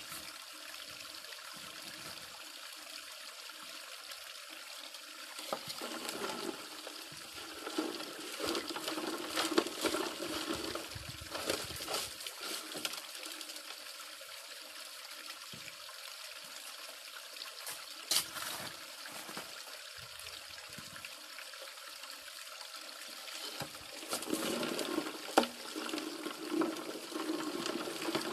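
Water pouring steadily into a 6-inch highbanker's hopper and running down its sluice, with gravel and stones scraping and rattling as material is fed in, loudest about six to twelve seconds in and again near the end.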